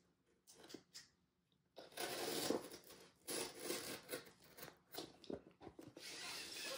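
Cardboard shipping box being opened by hand, with tape and packaging scraping, tearing and rustling. A few faint clicks come first, then repeated rustling bursts from about two seconds in.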